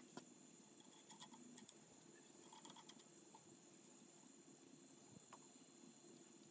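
Faint clicks and light scraping of a lock nut being turned by hand onto an Atlas 73 drill press spindle, a scatter of small clicks in the first three seconds, then little more than faint room noise.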